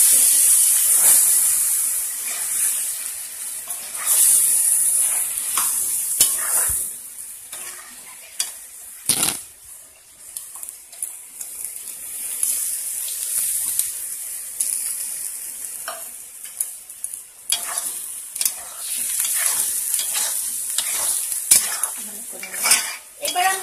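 Ash gourd and prawns sizzling in a hot, oiled wok while a metal spatula stirs them, with scrapes and sharp clicks of the spatula against the pan. The sizzle is strongest in the first several seconds and softer afterwards.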